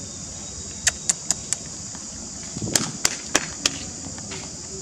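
Insects droning steadily at a high pitch, with a run of sharp clicks or taps over it: four quick ones about a second in and another cluster, one with a dull thud, around the middle.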